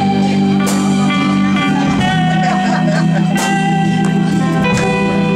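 A live band playing loudly: held keyboard chords over drums and guitar, with a saxophone in the band.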